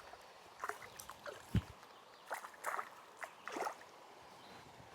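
Scattered small splashes of water as a hooked smallmouth bass is brought in at the surface, with one low thump about a second and a half in.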